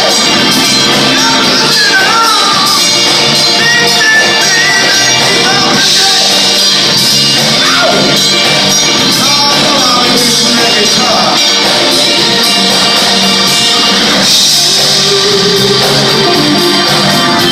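Live rock band playing loudly and steadily, with electric guitar over a full band groove.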